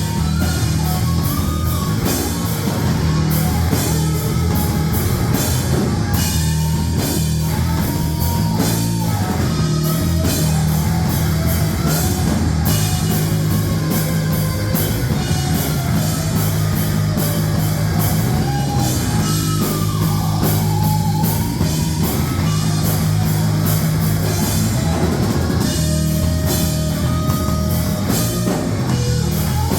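Rock band playing loud heavy-metal music, with a drum kit and guitars.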